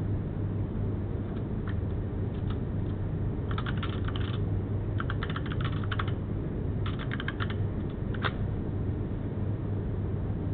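Typing on a computer keyboard: a few scattered keystrokes, then three quick runs of key clicks and a last single key press, over a steady low hum.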